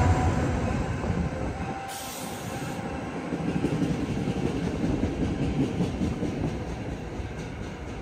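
New Jersey Transit passenger train rolling past on the rails, loud at first and dropping over the first couple of seconds to a steady rumble with faint wheel clatter.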